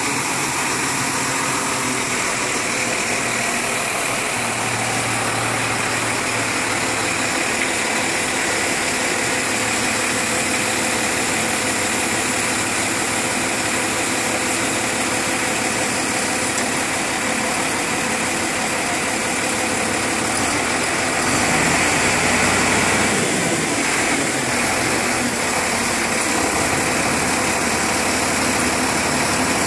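Heavy vehicle engine running steadily at idle, swelling a little louder about twenty-one seconds in.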